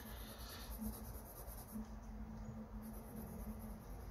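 Faint scratching of a mechanical pencil graphite tip on sketchbook paper as a dark area is shaded.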